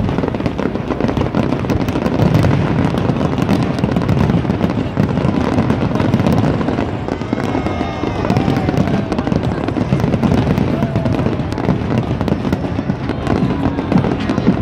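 Aerial fireworks shells bursting many at a time. Rapid continuous crackling runs over a steady low rumble.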